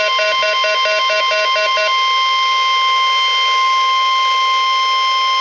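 NOAA Weather Radio warning alarm tone: a steady, loud 1050 Hz tone with overtones, sounded as part of the weekly test of the station's alarm device. For the first two seconds a rapid beeping at a lower pitch, about four beeps a second, sounds over it and then stops.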